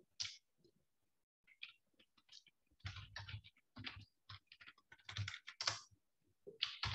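Typing on a computer keyboard: irregular runs of keystroke clicks, starting after a pause of about a second.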